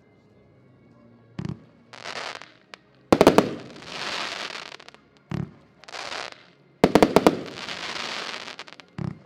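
Xplode Unplugged consumer firework battery firing. Each shot is a low thump as it leaves its tube and a short hiss, then a quick string of sharp bangs and a long crackle. The cycle repeats about every four seconds, three times.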